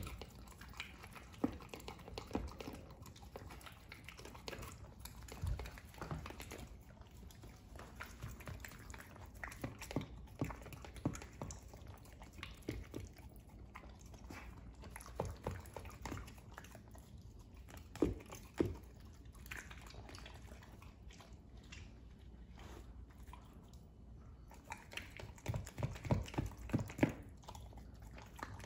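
A Welsh corgi eating chunks of vegetables from a plastic slow-feeder bowl: scattered short crunching bites and chewing, with a quicker run of bites near the end.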